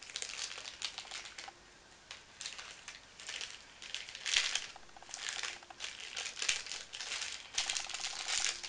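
Small clear plastic bag crinkling and crackling in irregular bursts as it is handled and opened, with a short quieter lull about two seconds in.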